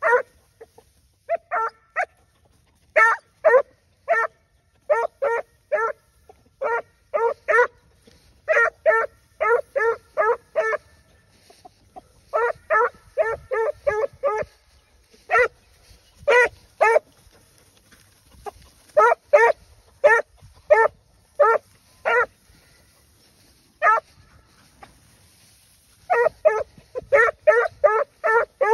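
Six-month-old hunting puppy giving tongue on a wild boar scent trail: short, high yelping barks in quick runs of two to five, with brief pauses between runs.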